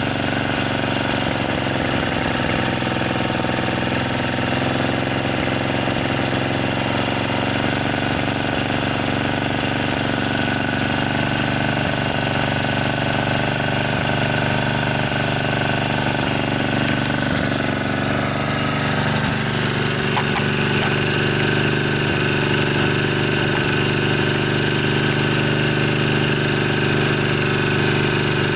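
Tecumseh H30 3 hp single-cylinder side-shaft engine running steadily at low speed while its carburetor's slow-speed (idle mixture) screw is turned with a screwdriver; the engine note shifts slightly about two-thirds of the way through as the mixture is adjusted.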